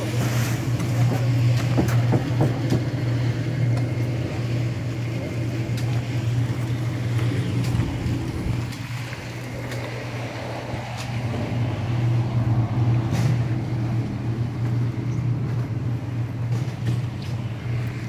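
Portable drum concrete mixer running with a steady, loud motor drone, with a few light knocks and clicks over it.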